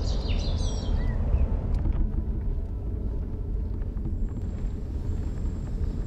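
Steady low rumble, with a few faint high chirps during the first second.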